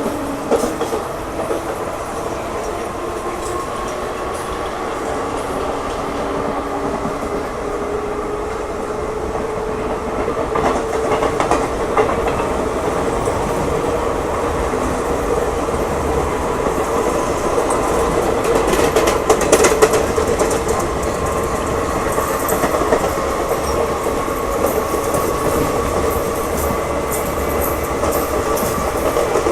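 Train running along the rails: a steady rumble with wheel clatter, and a faint whine that rises slowly in pitch. It grows louder, with sharper clacks over the rail joints, about two-thirds of the way through.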